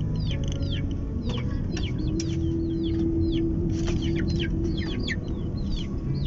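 Rapid high bird chirps, short notes falling in pitch several times a second, over the steady low hum of a small car's engine.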